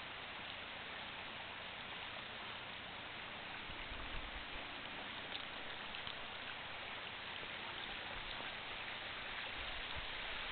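Steady outdoor hiss, with a few soft low rumbles on the microphone about four and six seconds in.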